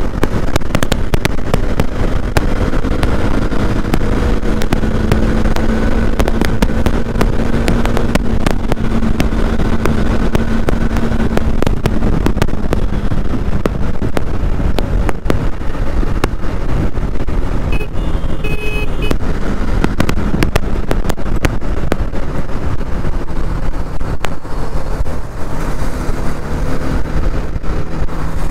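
Motorcycle riding at highway speed: a steady engine hum under heavy wind rush and buffeting on the helmet microphone. The engine note settles lower in the second half, and a brief high-pitched tone sounds about two-thirds of the way through.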